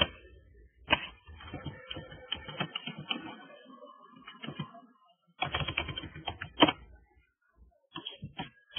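Typing on a computer keyboard: a run of rapid keystrokes from about a second in, then a second, shorter run about halfway through, with a few scattered key clicks near the end.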